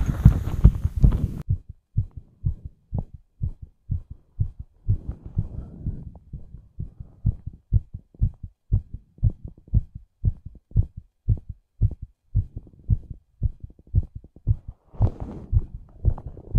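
A fast human heartbeat: low thuds in quick, even succession, often in lub-dub pairs. A louder, noisier stretch of heartbeat cuts off suddenly about a second and a half in, and a brief rustle-like burst of noise comes near the end.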